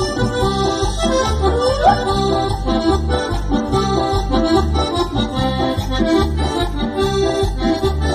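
Cumbia band playing an instrumental passage: a melodic lead over a steady bass and drum beat.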